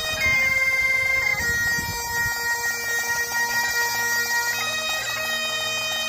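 Highland bagpipes playing a slow tune over their steady drones, the melody moving between long held notes with a change every second or few.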